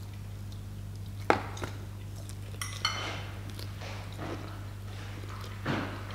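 Light clicks and knocks, with one short ringing clink near the middle, as someone eats takeaway food from cardboard boxes, over a steady low hum.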